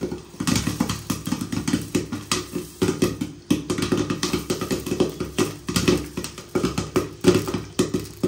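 Popcorn kernels popping in a covered pan under a glass lid: a fast, irregular run of sharp pops, several a second.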